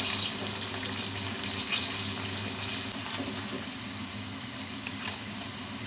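Breaded banana fritters deep-frying in hot oil in a wok: a steady sizzle and hiss with light crackling. There is one sharp tap about five seconds in.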